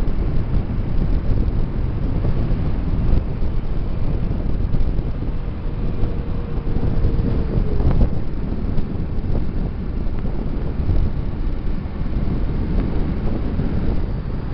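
Wind rushing over the microphone on a moving motorcycle, a steady low rumble with the bike's engine and road noise underneath.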